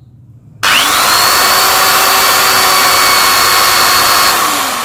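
BUILDSKILL 10 mm corded electric drill starting about half a second in. Its motor whine spins up quickly and runs steadily at full speed while drilling another hole in wood, then winds down near the end as the trigger is let go.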